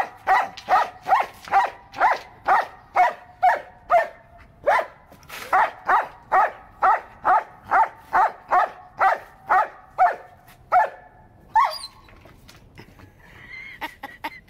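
German Shepherd dog barking steadily in short, sharp barks, about two a second, then breaking off with one high rising yelp about eleven seconds in. These are guarding barks over a wooden board he doesn't want picked up.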